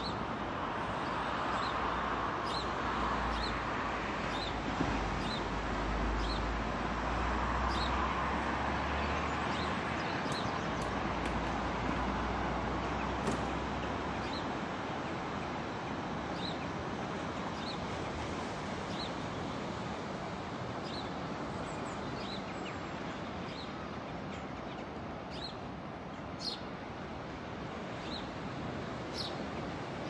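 Steady wash of surf from waves breaking along the beach, with a bird giving short high chirps over and over. A low rumble underneath fades out about halfway through.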